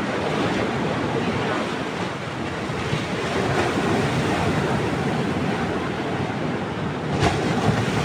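Heavy sea surf: waves breaking and washing in foam against the jetty, a steady, dense rush of water. A short sharp knock about seven seconds in.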